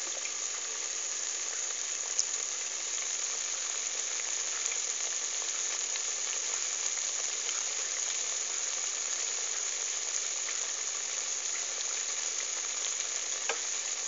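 Buñuelos de viento (choux-dough fritters) deep-frying in hot oil in the bowl of a programmable multicooker: a steady sizzle with fine crackling.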